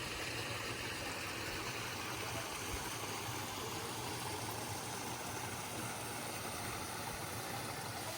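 Steady rush of a flowing mountain stream or waterfall, an even noise with no breaks.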